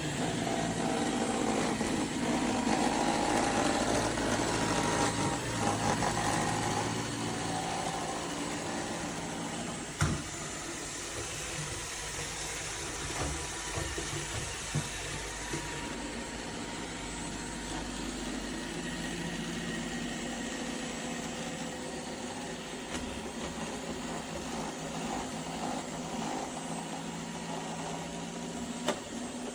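iRobot Roomba Vac Essential (Q0120) robot vacuum running, a steady motor hum with brush whirr, a little quieter after the first seven or eight seconds. A sharp knock about ten seconds in.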